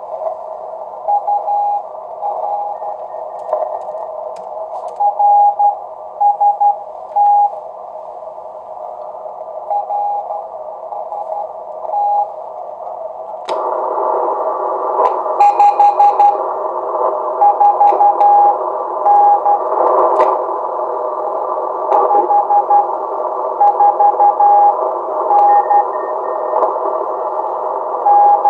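Receiver audio from a homebuilt 1Watter QRP transceiver on the 40 m amateur band: steady band hiss with a Morse code (CW) signal keyed in groups of dots and dashes at one steady pitch. About halfway through, the hiss grows suddenly louder and brighter while the Morse keeps coming.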